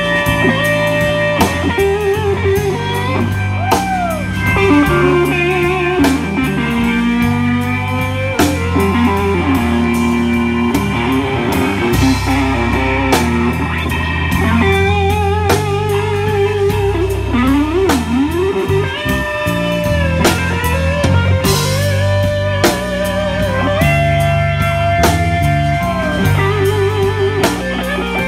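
Live blues band playing an instrumental passage: a Fender Stratocaster electric guitar plays lead lines with string bends and vibrato over bass guitar and a drum kit.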